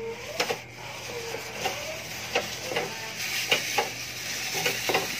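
Irregular clicks and knocks of a high-heeled sandal pumping the cast-iron treadle of a Singer treadle sewing machine, over a steady hiss.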